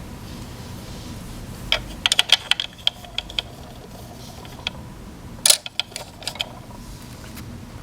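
Small plastic toy eggs clicking and clattering against a plastic egg tray as they are set in, in two bursts of quick sharp clicks.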